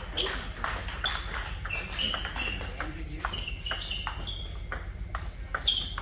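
Table tennis rally: repeated sharp clicks of the celluloid-type ball striking paddles and the table, mixed with short high-pitched squeaks of shoes on the court floor.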